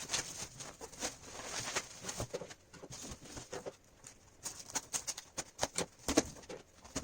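Cardboard packaging of graphics-card boxes being handled and opened: irregular taps, clicks and rustles, with a sharper knock about six seconds in.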